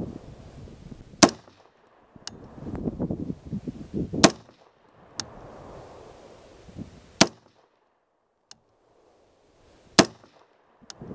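Rock River Arms 24-inch varmint AR-15 firing M855 5.56 mm rounds: four single shots about three seconds apart, with fainter sharp cracks between them.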